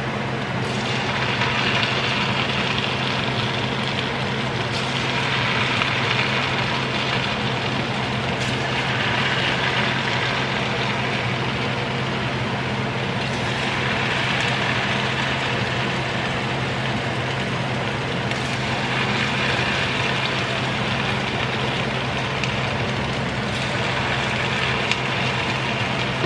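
Churro dough frying in a pot of hot oil: a steady sizzle that swells about every four seconds as fresh lengths of piped dough are cut into the oil. A steady low hum runs underneath.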